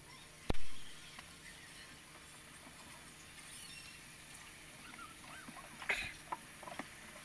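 Chicken liver and gizzard adobo simmering in a frying pan: a faint, steady sizzle with small scattered pops, and a single sharp knock about half a second in.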